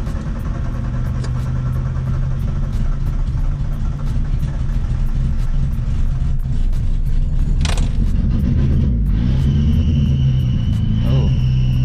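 1989 Ford Festiva's carbureted four-cylinder engine running steadily after being started from a flooded state.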